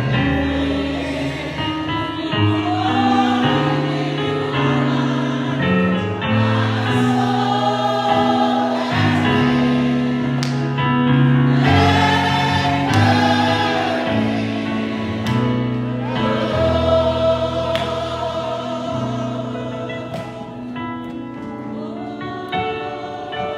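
Gospel choir singing over a sustained organ or keyboard accompaniment.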